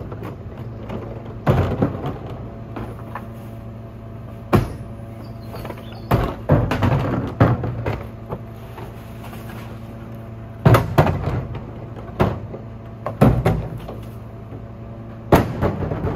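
Garwood rear-loader garbage truck idling steadily, with a string of sharp bangs and clatters from plastic wheelie bins being wheeled up and handled at its rear bin lifter.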